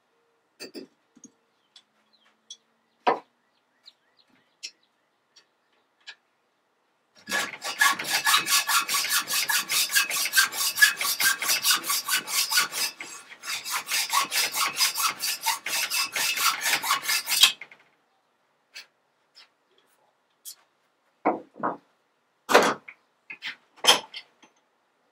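Hand hacksaw cutting a steel shovel pin held in a vise to shorten it, in quick, even back-and-forth strokes for about ten seconds with a brief pause midway. A few light metal clicks and knocks come before and after as the pin and tools are handled.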